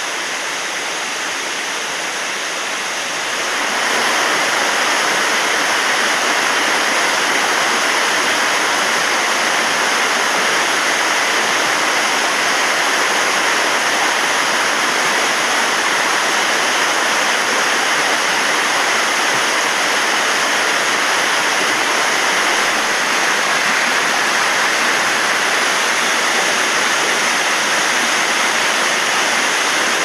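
Waterfall: a steady rush of falling water that grows louder about three to four seconds in, then holds steady.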